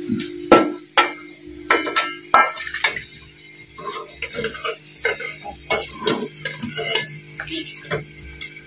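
Metal ladle clinking and scraping against a steel bowl and an aluminium cooking pot as koftas are tipped into the curry sauce and stirred. The sharpest knocks come in the first second or so, followed by many lighter clicks over a steady low hum.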